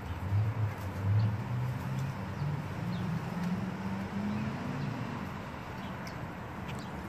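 A Blue Bay Shepherd gnawing and chewing a chunk of frozen raw venison. Through the first four seconds or so a low hum wavers in pitch, and faint bird chirps come through now and then.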